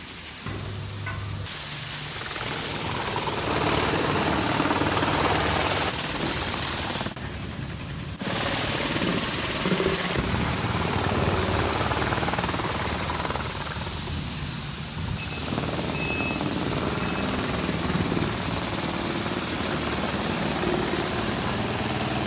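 High-pressure water jets from a wheeled underchassis wash attachment spraying up against a car's underbody: a steady loud hiss and rattle, with a motor running underneath. It briefly drops about seven seconds in.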